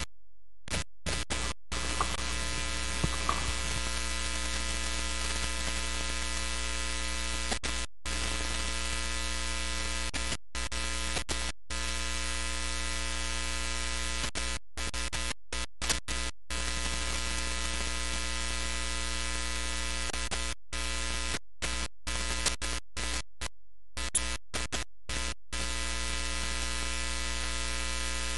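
A steady electrical buzz with many overtones that never changes pitch, cutting out to dead silence for short moments many times.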